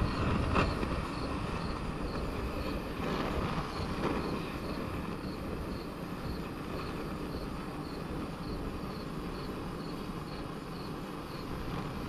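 Propane torch on a one-pound cylinder burning steadily as it scorches a wooden hatchet handle, with wind buffeting the microphone, strongest in a gust near the start.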